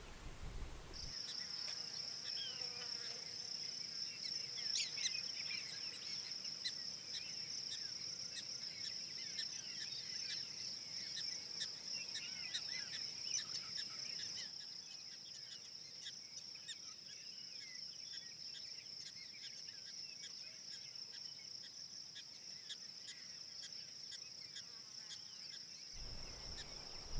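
Insects trilling steadily at a high pitch, with many short bird chirps scattered over it.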